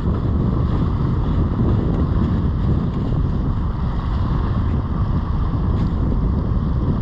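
Steady wind rushing over the microphone, with ocean surf underneath.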